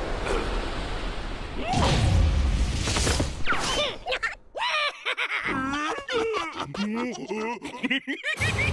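Cartoon slapstick soundtrack: a noisy crash-and-whoosh sound effect for about the first four seconds, then squeaky, wildly sliding squeals and grunts from cartoon characters.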